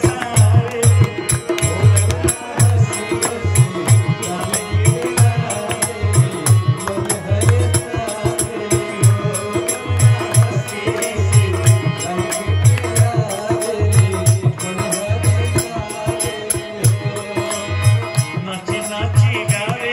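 Live Indian devotional folk music (a sohar song): harmonium with a steady drum beat and busy rattling, jingling percussion.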